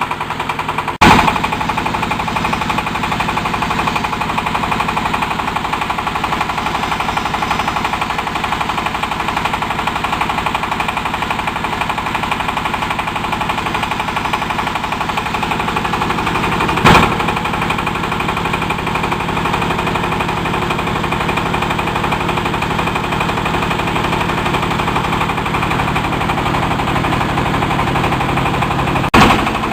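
Fish-feed pellet machine running steadily with a fast, even rattle. Three loud sharp cracks stand out: about a second in, about halfway through, and near the end.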